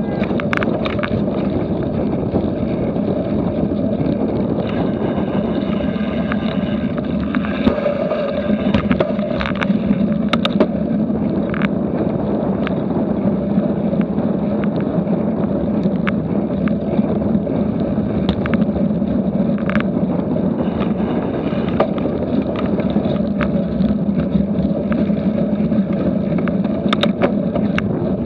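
Riding noise from a cyclocross bike at race pace: steady wind rumble on the microphone and knobby tyres rolling over grass and gravel, with scattered clicks and rattles from the bike.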